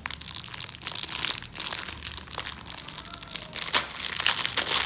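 Crinkly packaging being handled and opened: a dense run of crackles and rustles that grows louder in the last second or so.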